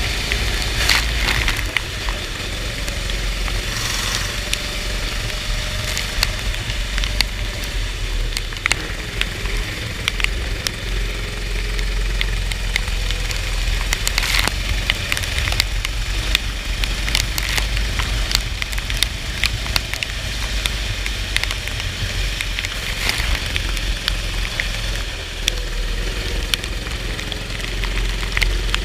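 Go-kart engine running on a rain-soaked track, with crackling noise and many small clicks over it.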